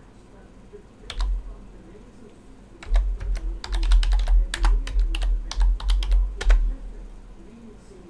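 Typing on a computer keyboard: a single keystroke about a second in, then a quick run of a dozen or so keystrokes, each with a dull thump, ending with a harder stroke at about six and a half seconds.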